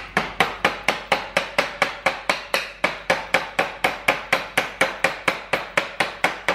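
Steady, rapid metal-on-metal tool strikes, about five sharp clicks a second, from hand tools working the nut and locking washer off a snowmobile's rear suspension skid.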